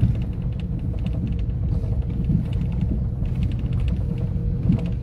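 A car driving on a dirt road, heard from inside the cabin: a steady low road-and-engine rumble, with light irregular creaks and rattles from the interior.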